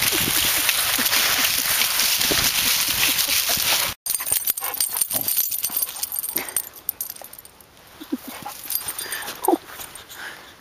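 Dry fallen leaves rustling steadily under a dog's paws for about four seconds; after a sudden cut, dogs whimpering, with a few short rising whines and yips.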